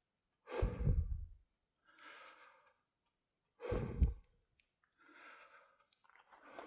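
A hiker breathing hard on a steep climb: two heavy exhales about three seconds apart, each followed by a quieter inhale, and a third breath beginning near the end.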